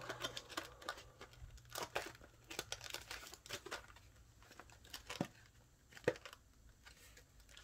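Cardboard Yu-Gi-Oh! booster box being handled and folded: faint rustling with scattered light clicks and scrapes, a few sharper ticks about 2, 5 and 6 seconds in.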